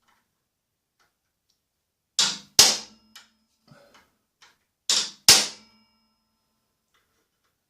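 A hammer striking a center punch on a steel table saw extension wing: two pairs of blows, about two and five seconds in, each a softer tap followed by a sharper strike that leaves a brief metallic ring. The punch is marking hole centres for drilling.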